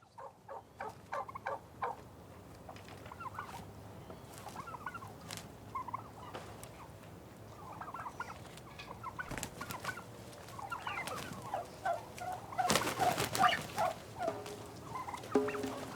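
Wild turkeys gobbling: repeated rattling gobbles one after another, the loudest and closest a few seconds before the end.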